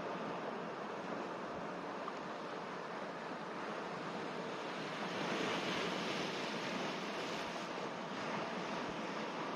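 Sea waves washing on the shore in a steady rush, swelling a little louder about halfway through.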